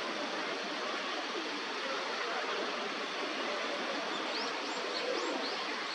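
Steady rush of flowing stream water, with a small bird giving a quick series of short, high chirps from about four seconds in.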